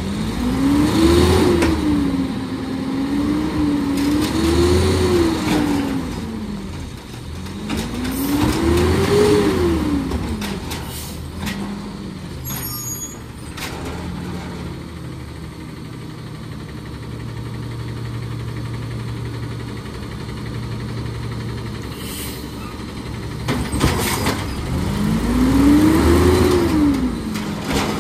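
Peterbilt 320 garbage truck's CNG engine revved hard four times, each rev a pitch that climbs and falls back, the first a double rev; between the third and fourth revs it drops back to a lower, steadier running note for about ten seconds.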